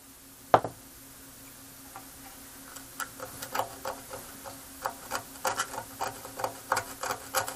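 A small flat metal tool scraping the corroded copper trace on the underside of a circuit board, in short scratchy strokes about two to three a second that start a few seconds in, to get past the corrosion to bare copper. A single click comes about half a second in.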